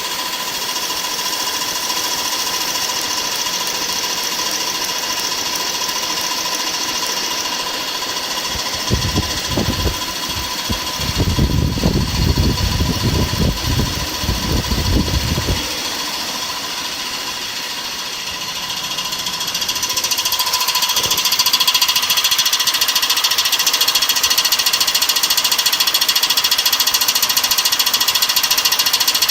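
BMW E46 engine running with a rapid, steady knocking clatter. A low rumble comes in for several seconds near the middle, and the engine sound grows louder about two-thirds of the way through.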